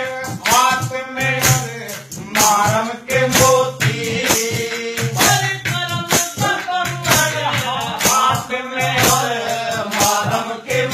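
A man singing a Haryanvi ragni folk song, with rhythmic percussion strikes about two to three a second and a low held note under the voice.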